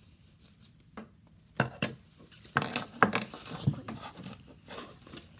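Metal medals clinking and knocking against each other as they are picked up and handled, an irregular scatter of sharp clinks starting about a second in.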